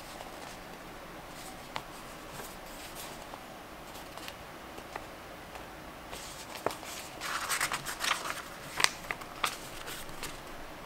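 Paper pages of a thin stitched booklet being handled and flipped: soft crackles and rustles, growing into a busier run of flapping and crackling from about six to ten seconds in as the pages are turned.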